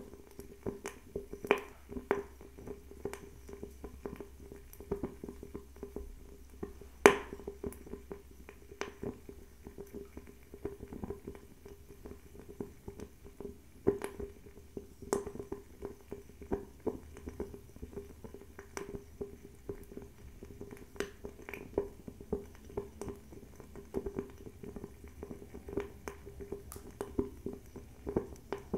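Bio-ethanol table fireplace burning, crackling with frequent irregular sharp pops and clicks over a steady low hum. The loudest pops come about 7 seconds in and again about 14 seconds in.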